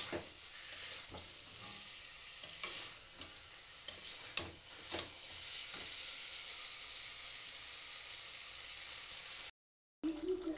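Chicken pieces frying in spiced masala in a kadai, sizzling steadily, with a metal spatula clicking and scraping against the pan now and then as the chicken is stirred. The sizzling cuts off abruptly about a second before the end.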